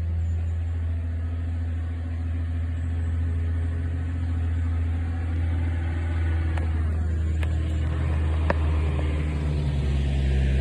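Steady low engine hum, with a few faint clicks about six to nine seconds in.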